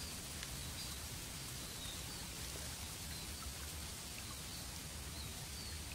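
Steady hiss of a small, shallow stream trickling along the bank, with short high chirps repeating every half second or so.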